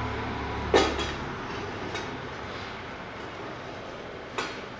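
Thin aluminum sheet-metal sign pieces handled and fitted together by hand: a sharp metal click just under a second in and a fainter one near the end, over a low hum in the first second or so.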